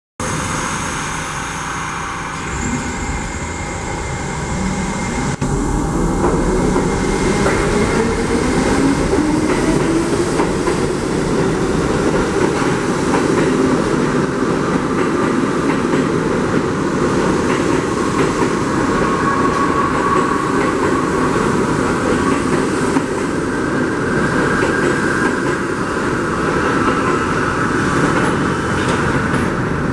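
R68 subway train pulling out of the station: its traction motors whine, rising in pitch over the first dozen seconds or so as it gathers speed, then holding steady, over the rumble and clatter of the wheels on the rails.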